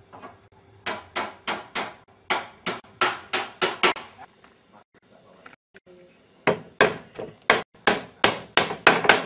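Hammering on wood, with sharp blows at about four a second in two runs and a pause of a couple of seconds between them.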